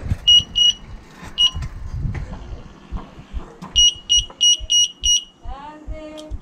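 Electronic bicycle horn beeping in short, high-pitched beeps: two, then a single one, then a quick run of five. A brief rising call follows near the end.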